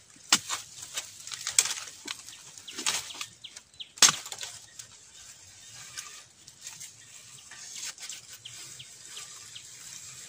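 A blade chopping into bamboo shoots: four sharp strikes a little over a second apart, the loudest about four seconds in. Crackling and rustling of dry bamboo leaf litter follows.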